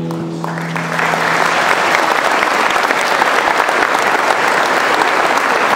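Audience applauding, the clapping starting about half a second in and holding steady, over the song's last held note, which dies away about a second and a half in.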